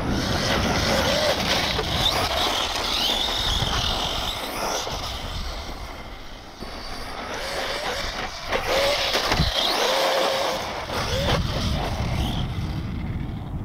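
Traxxas brushless electric RC truck whining at speed, the motor pitch rising and falling with the throttle, over a steady low rumble. It dips quieter about halfway through and comes back louder.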